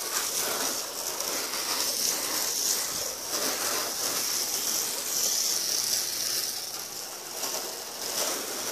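Garden-hose spray gun, its foam canister removed, spraying rinse water onto a pickup truck's body to wash the soap off: a steady hiss of water.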